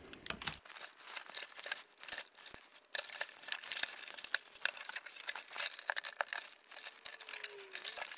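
Craft knife cutting along the glue joints of an RC plane's balsa-and-plywood fuselage frame while the parts are pried apart: a run of small irregular crackles, snaps and scrapes of wood and glue giving way.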